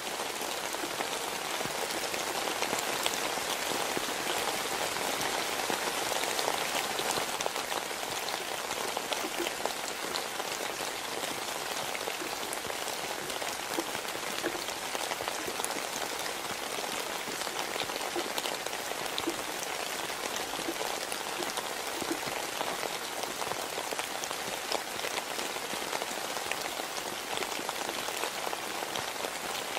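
Steady rain falling, an even hiss with scattered small drop ticks.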